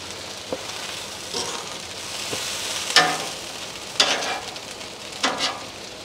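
Food sizzling steadily on a hot Blackstone flat-top griddle, with metal tongs clacking sharply against steel three times.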